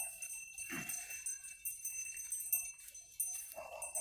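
Faint, high-pitched jingling of small bells, with a couple of brief lower sounds about a second in and near the end.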